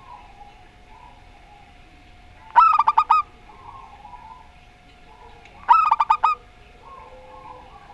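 Zebra doves (perkutut) calling to each other: two loud cooing phrases about three seconds apart, each a quick run of five or six notes, with softer, lower cooing in between.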